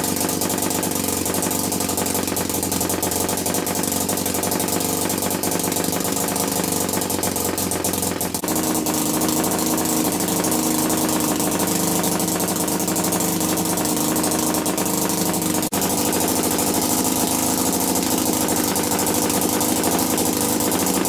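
Homemade single-cylinder two-stroke opposed-piston model engine (22 mm bore, 24 mm stroke) running steadily on its own under power, with a rapid even beat. Its note shifts slightly about eight seconds in.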